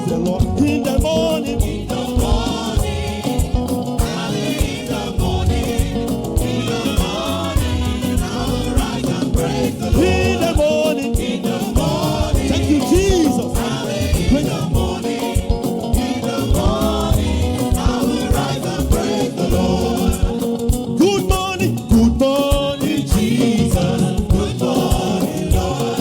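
Live African gospel praise music: a band playing an up-tempo dance beat with drums and keyboard while singers carry the melody.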